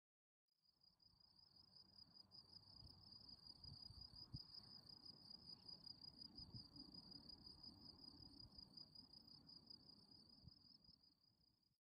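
Faint, steady high-pitched chirring of crickets in a field, a continuous trill with fast pulses, over a faint low rumble. It fades in about half a second in and stops just before the end.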